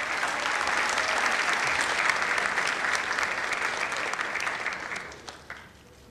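Audience applauding, steady for about four seconds, then dying away about five seconds in.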